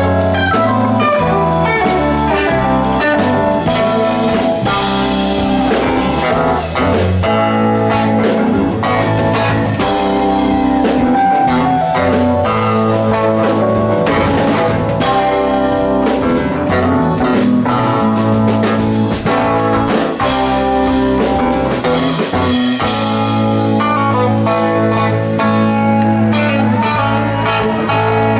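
Live rock band playing an instrumental jam: electric bass, electric guitars, drum kit and keyboards playing continuously and loudly.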